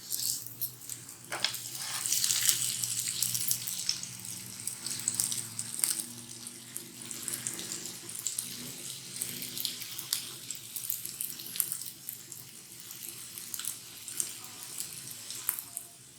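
Oil sizzling under a stuffed paratha shallow-frying in a pan: a steady hiss with scattered crackles and a few sharp clicks.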